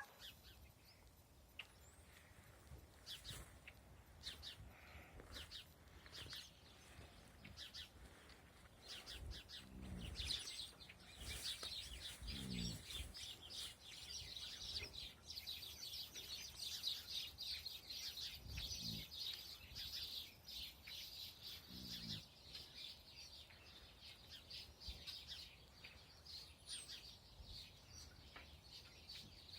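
Faint snoring: four slow snores, each about a second long, the first two close together and the last two some seconds later. Birds chirp throughout, a dense chorus of high chirps through the middle that is the loudest thing heard.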